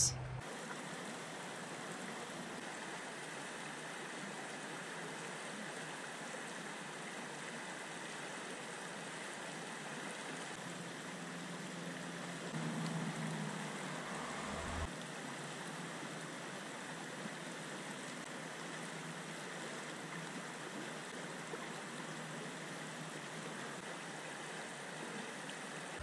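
Steady rush of a creek's flowing water. A little past the middle, a slightly louder stretch of handling noise ends in a short low thump.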